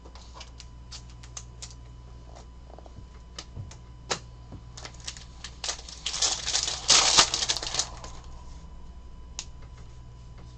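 Trading cards being handled and flicked through, with scattered small clicks and taps. About six seconds in, a foil card-pack wrapper crinkles loudly for about two seconds as the pack is opened.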